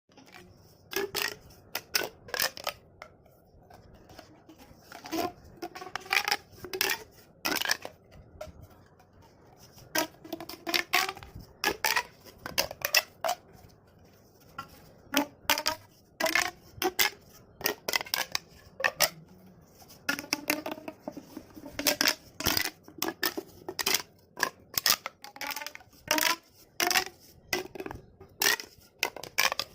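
Corrugated plastic pop tubes being stretched and squashed, their ridges snapping in and out in rapid, uneven runs of sharp pops and clicks, some with a short hollow ring.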